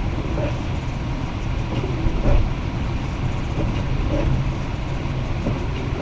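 Car driving on a snow-covered road, heard from inside the cabin: a steady low rumble of engine and tyres, with one louder bump a little over two seconds in.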